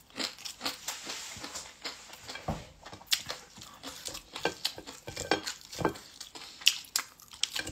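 A person eating rice with her fingers close to a phone microphone: chewing and lip smacks, with irregular soft clicks and scrapes of fingers against the plate.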